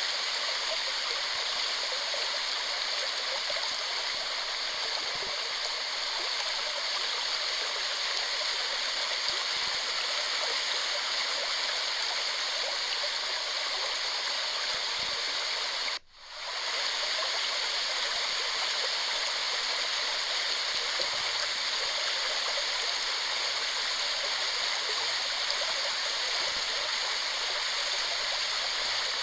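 Waterfall: a steady rush of falling water. About halfway through, the sound cuts out abruptly and fades back in within a second.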